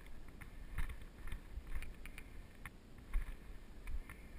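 Mountain bike rolling down a dirt singletrack: tyre noise on the dirt and a low rumble, with irregular clicks and knocks from the bike rattling over roots and bumps.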